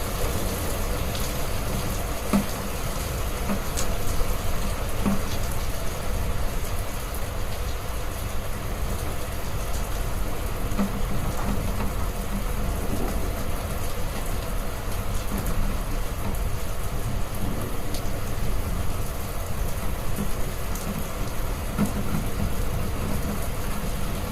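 Heavy rain falling steadily, with a deep constant rumble underneath and scattered ticks of single drops.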